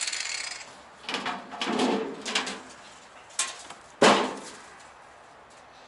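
A power tool's steady whirr stops about half a second in, followed by a few clattering knocks of tools and parts being handled and one sharp, loud knock about four seconds in.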